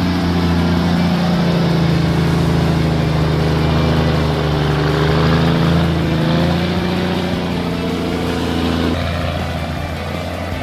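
Heavy truck engine running steadily, its pitch sagging slightly and recovering in the middle; near the end part of its higher note drops away and it quietens a little.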